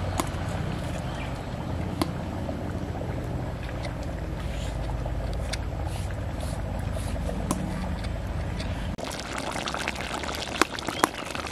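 A steel spoon scraping ground spice paste off a stone grinding slab, a few light scrapes and clicks over a steady low hum. About nine seconds in this gives way to the fine crackle and bubbling of curry simmering in an iron karahi.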